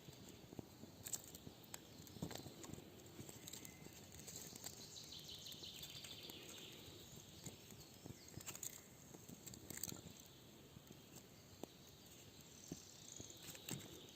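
Faint, scattered sharp clicks and knocks over quiet outdoor background.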